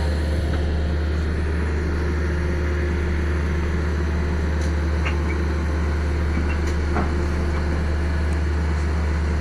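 Hydraulic static pile driver running: a steady, unchanging low engine drone with a hum, its pump pressing in a precast concrete pile with no hammer blows. A couple of faint clicks in the middle.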